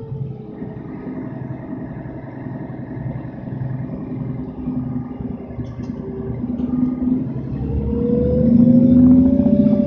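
Mercedes-Benz O530 Citaro bus's OM457 hLA straight-six diesel and ZF EcoMat automatic drivetrain, heard from inside the passenger cabin while on the move. It runs steadily at first, with a whine falling slightly, then from about seven seconds in the bus accelerates, getting louder with a rising whine.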